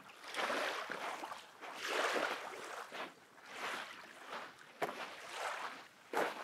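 Small lake waves lapping and washing on a black volcanic-sand shore, swelling and falling about once a second. A couple of sharper knocks come near the end.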